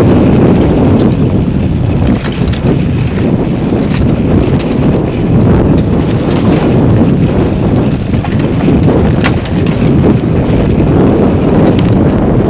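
Wind rushing over a helmet camera's microphone as a mountain bike rolls down a rough dirt trail, with scattered sharp clicks and rattles from the bike over rocks and gravel.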